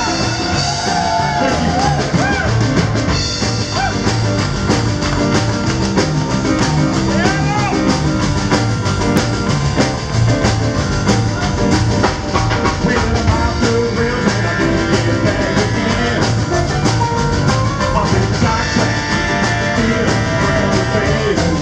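Live rock and roll band playing at a steady beat: drum kit, upright bass, stage piano and two saxophones, with a male singer.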